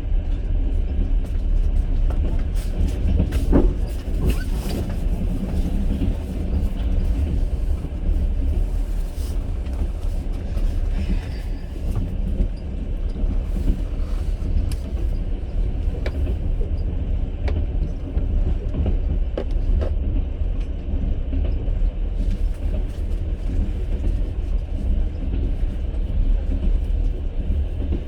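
Passenger train carriage running along the track, heard from inside: a steady low rumble of the wheels on the rails, with scattered knocks and clatters.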